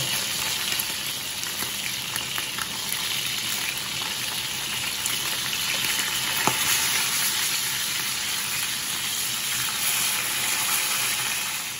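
Tanigue (Spanish mackerel) steaks frying in butter in a pan, a steady sizzle, with an occasional click of tongs against the pan as the steaks are moved, the clearest about six and a half seconds in.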